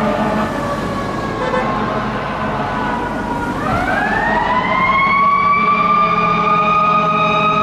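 Siren of a responding 2001 Seagrave fire engine. Its pitch slides slowly down for the first few seconds, then winds back up from about three and a half seconds in and holds high near the end, over the truck's engine running steadily underneath.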